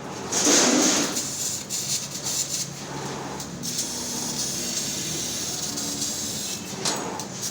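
Laser CNC cutting machine hissing steadily as it cuts, louder for about a second near the start and again briefly near the end, over a faint low machine hum.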